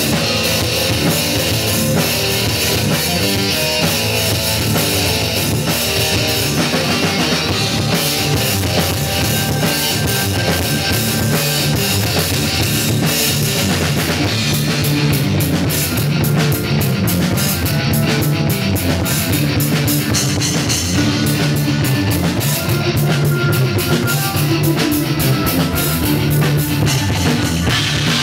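Live instrumental progressive rock from a full band, with drum kit and electric guitar to the fore; the drumming and cymbal strikes grow busier about halfway through.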